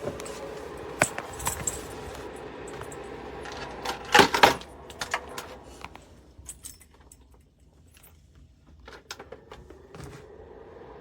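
A portable electric space heater's fan hums steadily under a series of plastic clicks and clattering knocks from handling, with the loudest clatter about four seconds in. The hum drops away after about five and a half seconds and comes back near the end.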